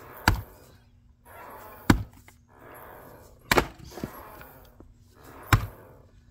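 Splitting axe chopping into a willow round four times, a sharp strike about every one and a half to two seconds, the third landing as a quick double crack.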